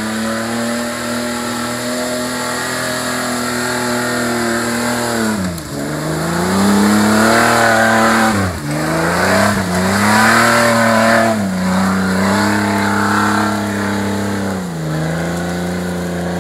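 Jeep engine revving hard as it pulls through mud. The revs dip and climb again several times as the throttle is worked, and it is loudest as the Jeep passes close by.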